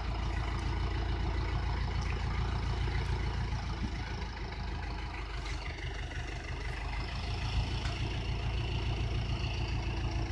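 Ursus C-385 tractor's diesel engine running steadily while driving the hydraulics that tip the loaded trailer.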